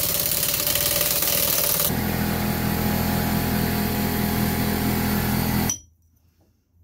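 Pneumatic impact wrench running on the screw of a U-joint press, backing it off. It hammers with a dense rattle for about two seconds, then runs steadier and lower, and cuts off suddenly near the end.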